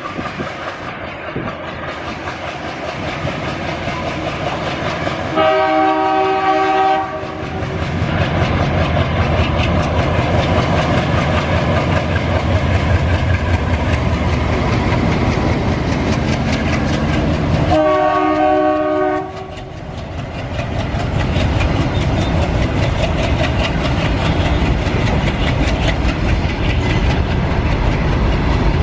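ALCo WDG3A diesel locomotive blowing its horn twice, each blast about a second and a half long and roughly twelve seconds apart. The engine runs under it, and from about eight seconds in comes the rapid clickety-clack of freight wagon wheels over rail joints.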